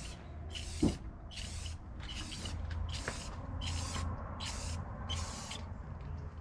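Aerosol spray can of clear coat spraying in a series of about seven short hissing bursts, each about half a second long: quick passes over a sanded plastic headlight lens. A single knock about a second in.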